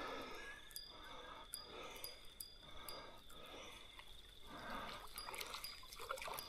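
Faint sounds of a small redfin being reeled in on a spinning rod: light ticking from the reel, then soft water splashing about four and a half seconds in as the fish reaches the surface near the bank.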